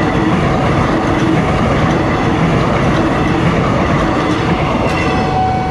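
Railink airport electric multiple unit passing close by at speed, its wheels and carriages making a loud, steady rolling rumble. A steady high tone comes in near the end.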